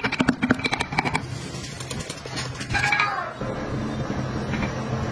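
A metal hand carving tool working into a wooden wheel's carved spokes, giving a quick run of sharp taps and clicks in the first second. A brief falling tone follows near the middle, over a steady low hum.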